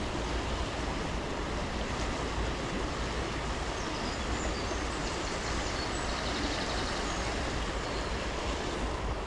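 Steady rush of a small river's flowing water, with a few faint, high bird chirps in the middle.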